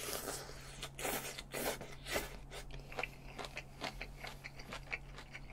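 Close-up chewing of a mouthful of spicy stir-fried webfoot octopus with bean sprouts: a quick run of short bites and mouth clicks, thinning out toward the end.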